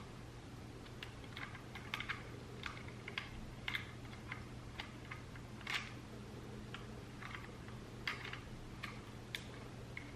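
Irregular light plastic clicks and taps, a few a second, from a camcorder being handled and its buttons pressed while it will not turn on, over a faint steady low hum.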